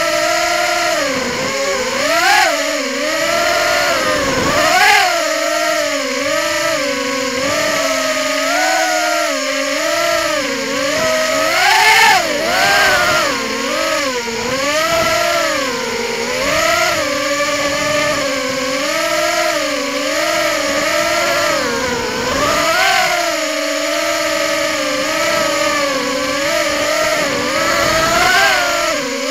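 Small FPV quadcopter's electric motors and propellers whining in flight, as heard from its own onboard camera. The pitch keeps rising and falling with the throttle, a swell every second or two.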